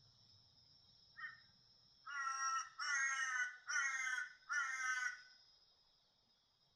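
A bird giving harsh, crow-like calls: a short call about a second in, then four loud, drawn-out calls in quick succession, each dropping slightly in pitch. A steady high-pitched hum runs underneath.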